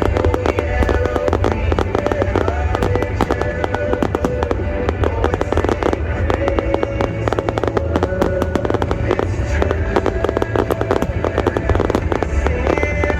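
Fireworks going off in a rapid, continuous stream of crackles and bangs over a deep rumble, mixed with the music the display is choreographed to.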